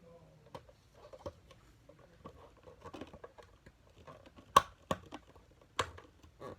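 Plastic toy playset parts being handled and fitted together: scattered light taps and clicks, with a sharper click a little past the middle and another near the end.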